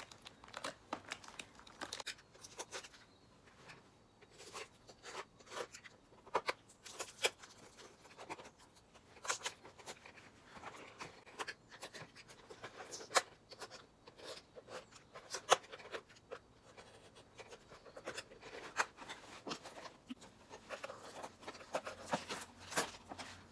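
Small scissors snipping packaging ties and tape with scattered sharp clicks, and plastic packaging rustling and crinkling as a doll is freed from its box.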